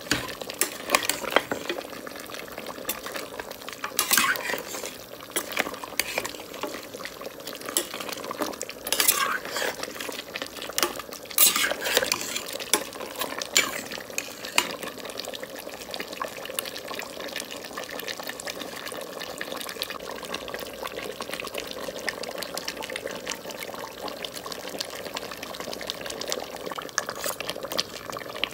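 A metal spoon stirring mutton pieces in a pot, scraping and clinking against the pot over a steady sizzle of the meat frying. The scrapes come thickest in the first half, and the sizzle carries on more evenly after that.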